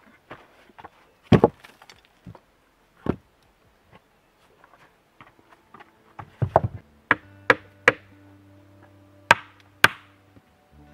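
Sharp knocks of stone on stone and of a small hammer striking stone as stones are set and tapped into a dry-stone wall. There are a few spread-out knocks at first, then a quick rattle of strikes and single blows about half a second apart later on.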